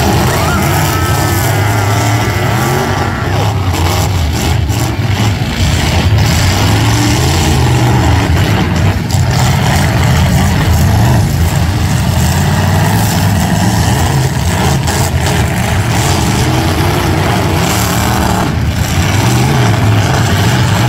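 Several derby trucks' engines running loud and revving hard without a break, rising and falling in pitch as the drivers work the throttle.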